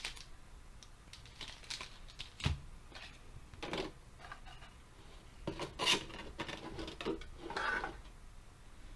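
Hands handling Pokémon card packaging: a metal collector's tin and its clear plastic tray being moved about. Scattered clicks and rustles, with a dull knock about two and a half seconds in.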